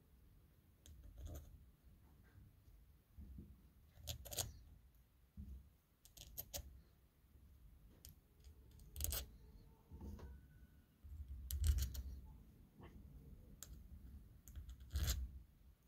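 Light metallic clicks and scrapes of a small hand tool working the screws on a snowmobile fuel pump's cover, with dull handling bumps of the pump in the hand. The clicks come singly or in short clusters every two or three seconds.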